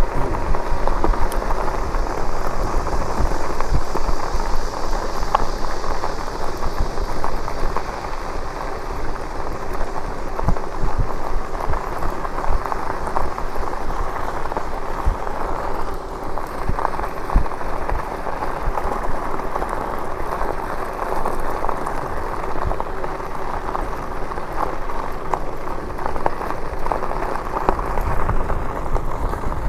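Steady riding noise from an e-bike: the tyres running over the road surface, with wind buffeting the microphone.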